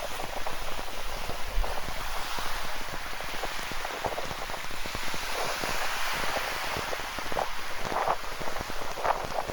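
Rain falling with ocean surf washing on the shore: a steady hiss of water, dotted with many small drop taps and a few brighter splashes near the end.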